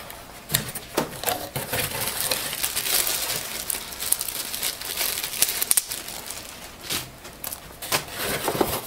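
Clear plastic packaging bag crinkling and rustling as it is handled, with many sharp crackles.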